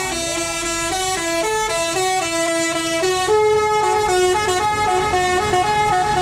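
Bus telolet basuri musical horn playing a melody: a quick run of short stepped notes, several horn tones sounding together, over the low rumble of the bus.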